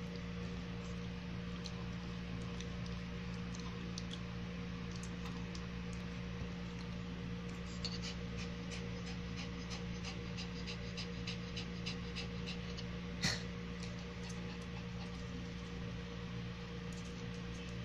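A Shih Tzu chewing carrot pieces, with a run of short crunches about three a second from about eight to thirteen seconds in and one louder snap just after thirteen seconds. A steady low hum sits underneath.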